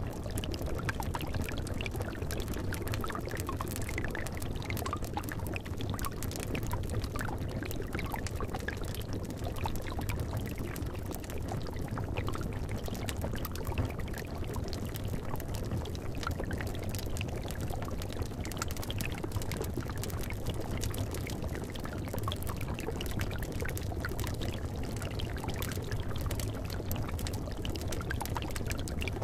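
Liquid bubbling and gurgling steadily in a cauldron, with frequent small pops and crackles from a fire over a low steady rumble.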